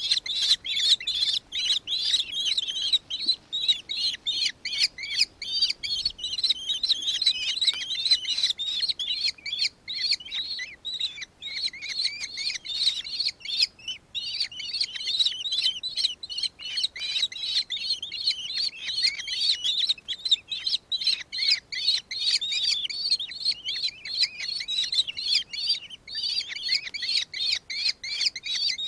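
Birds chirping rapidly and without a break, many high notes overlapping.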